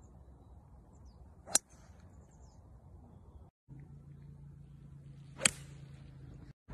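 Two golf shots, each a single sharp crack of a golf club striking the ball: one about a second and a half in, the other near the end. A low steady hum runs under the second shot.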